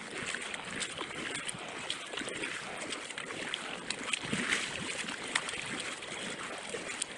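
Kayak paddle blades dipping and pulling through the water in alternating strokes, with splashing and dripping from the blades.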